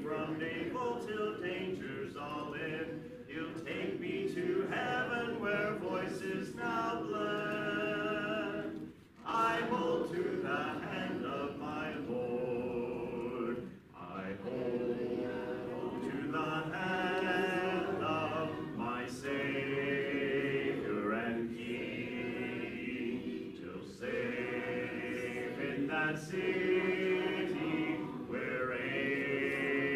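Congregation singing a hymn a cappella in harmony, mixed voices together with no instruments, pausing briefly for breath between phrases.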